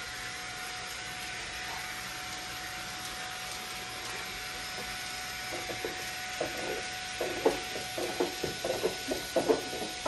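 MOOSOO K17 Pro cordless stick vacuum running steadily on its low suction mode, a steady motor whine over the hiss of air through the hose. From about halfway on, the nozzle clacks and rattles against the window-blind slats in a quick, irregular series of knocks.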